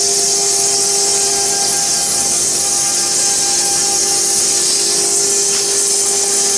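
Stone CNC router spindle cutting into a stone tombstone slab under water coolant: a steady hum with a few held tones over a loud, high grinding hiss.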